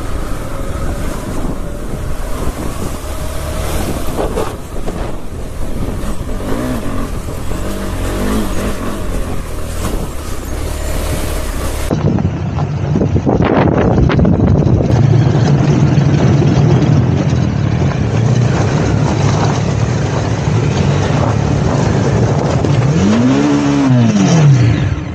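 Motorcycle engines running on a rough off-road climb. About halfway the sound changes abruptly and the engine becomes louder and steadier, and near the end one engine's pitch rises and falls once as it revs up and back down.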